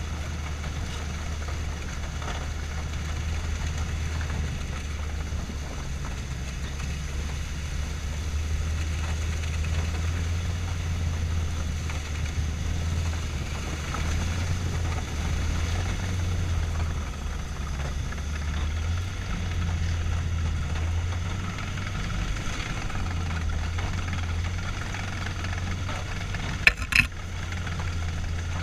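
Studebaker M29C Weasel's six-cylinder engine running steadily as the tracked vehicle drives, a low, even hum. Two sharp knocks come close together about two seconds before the end.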